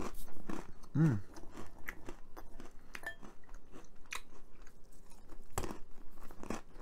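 Mouth crunching and chewing Hershey's cookies 'n' creme dipped pretzels: a run of crisp, irregular crunches.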